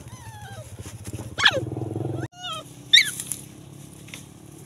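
Dog giving short, high yelps that fall sharply in pitch, two loud ones about a second and a half apart with fainter ones around them. A steady low hum under them cuts off abruptly halfway through.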